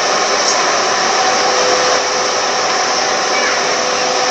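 A car air-conditioning blower fan running steadily: an even rushing hiss with two faint, steady humming tones underneath.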